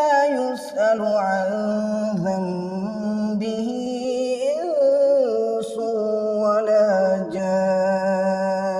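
A male voice reciting a verse of the Quran in Arabic, chanted melodically in long held notes with slow ornamented pitch glides.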